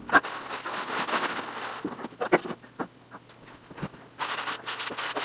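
Drywall joint compound being hand-sanded with a sanding block or sponge: two stretches of rasping strokes against the wall, with scattered clicks and knocks between them.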